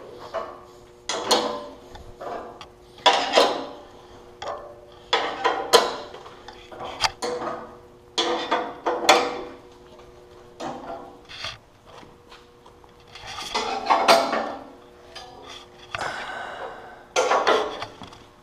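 Air-over-hydraulic 8-ton jack running on shop air, a steady hum with a rush of air every second or two, as it pushes up the leaf of a homemade sheet-metal brake bending 1/8-inch 5052 aluminum.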